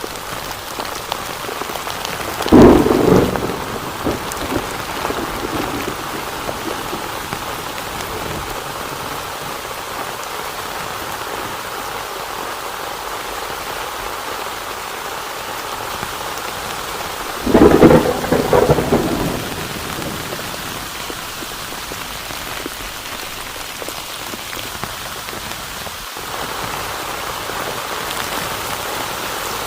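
Heavy rain falling steadily, with two loud claps of thunder, one a few seconds in and another just past the halfway mark.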